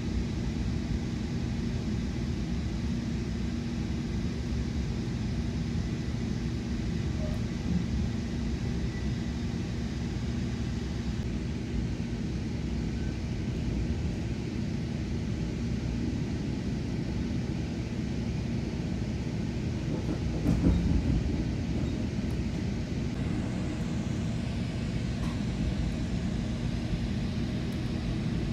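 Inside a Nippon Sharyo bi-level commuter coach in motion: the steady low rumble of the train running on the rails, with a steady hum, and a brief louder clatter about twenty seconds in.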